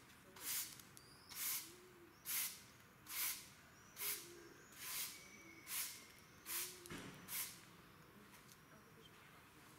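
Footsteps crunching on a sandy, debris-strewn path, about one step a second, stopping about three-quarters of the way through. Faint bird chirps sound in the background.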